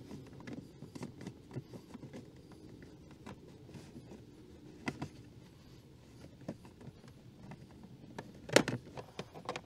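New pleated cabin air filter scraping and rustling against the MINI Cooper R50's plastic filter housing as it is worked up into its slot, with scattered light clicks and one sharper knock near the end.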